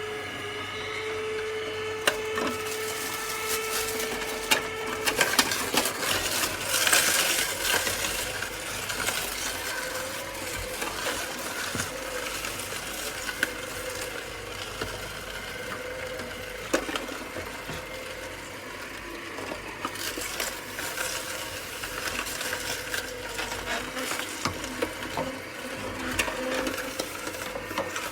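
Cold-press slow juicer running: a steady motor hum, with irregular crunching and cracking from about five seconds in as the auger crushes produce.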